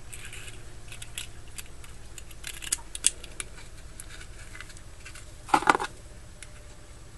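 Light metal clicks and taps from handling a Zippo lighter insert and its flint spring, scattered irregularly, with a louder short clatter about five and a half seconds in.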